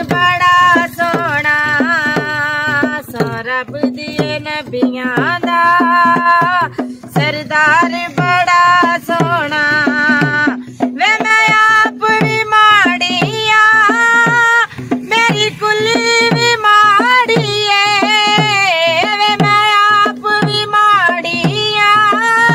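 A woman singing a Punjabi devotional song in an ornamented solo voice, accompanying herself on a dholak, a two-headed barrel hand drum, with a steady beat whose bass strokes slide down in pitch.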